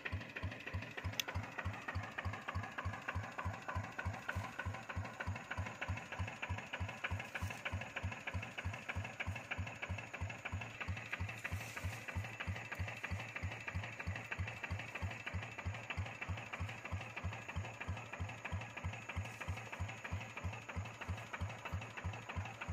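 Single-cylinder diesel engine of a Quick walk-behind hand tractor running steadily, with an even beat of firing strokes.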